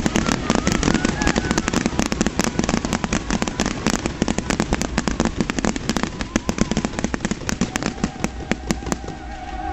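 Fireworks display: a dense, rapid crackle of many small sharp bangs from bursting crackling stars, thinning out near the end.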